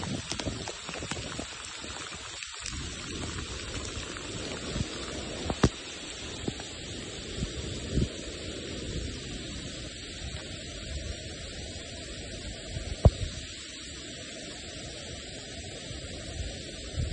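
Heavy rain falling steadily in wind, with a few sharp knocks on the microphone, the loudest about three quarters of the way through.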